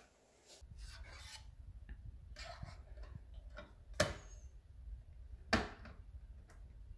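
Handling noises on a plastic portable CD boombox: hands rubbing and fumbling over the case. Two sharp plastic clicks come about four and five and a half seconds in as the lid and buttons are worked, over a low rumble that starts about half a second in.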